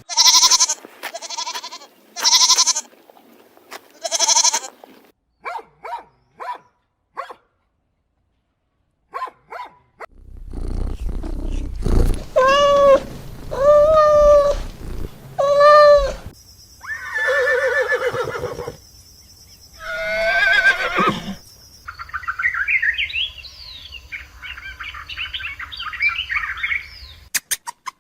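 Calls from several different animals in turn. First come short repeated calls, then a brief silence, then three long calls held at a steady pitch, then harsher cries, and rapid high chirps near the end.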